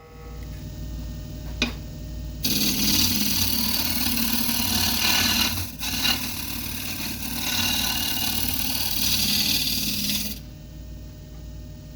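Wood lathe motor humming as a carbide-tipped turning tool cuts the spinning yellow cedar and walnut bowl blank: a steady scraping hiss of about eight seconds with a brief break partway through. The cut stops near the end, leaving the motor hum.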